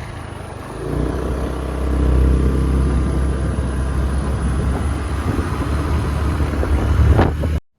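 Two-wheeler ride heard from on board: a steady low engine and road rumble with wind noise, which swells about a second in and cuts off abruptly near the end.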